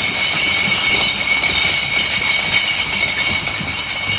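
A mass of glass wine bottles sliding and tumbling off a truck trailer onto the pavement: a steady, loud jangling clatter and grinding of glass on glass.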